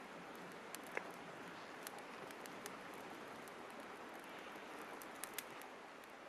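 Wood fire crackling with a few scattered sharp pops, over a steady rush of river water.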